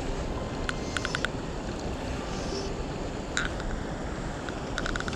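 Steady rush of river water, with a few short sharp clicks: a cluster about a second in, one near the middle and a quick run near the end.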